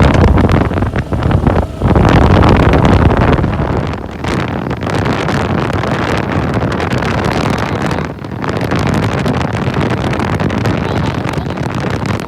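Suzuki Gixxer SF single-cylinder motorcycle engine running while riding, mixed with heavy wind buffeting on the microphone. It is loudest for the first three or so seconds, then settles to a steadier, lower level.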